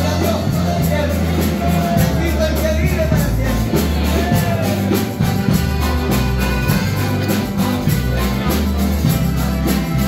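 Church choir singing an old-hymn medley to guitars and a bass line, with a steady beat.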